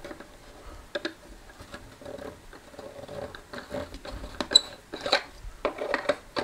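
Hands handling the plastic housing of a disassembled Creative D100 Bluetooth speaker: scattered small clicks, taps and rubbing, with a sharp click about four and a half seconds in and a busier run of knocks near the end.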